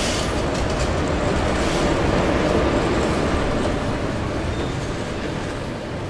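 Train rolling into a station: a steady rumble of wheels on the rails with a few metallic clanks, easing off in the second half as it slows.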